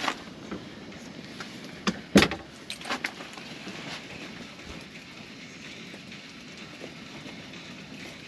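A few sharp clicks and knocks from small objects being handled, the loudest about two seconds in, over a steady hiss.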